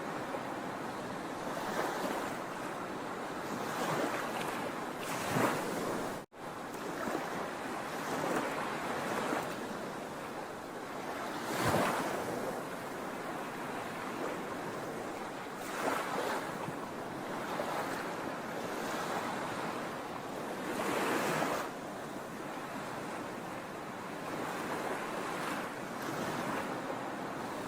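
Sea waves breaking and washing ashore, a steady surf noise that swells with a louder wave every few seconds. The sound drops out for an instant about six seconds in.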